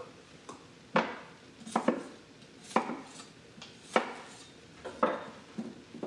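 Chef's knife cutting potatoes into cubes on a wooden cutting board: the blade knocks sharply on the board several times, roughly once a second.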